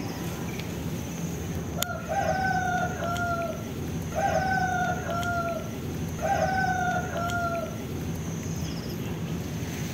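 A rooster crowing three times, about two seconds apart, each crow a held note ending in a shorter tail.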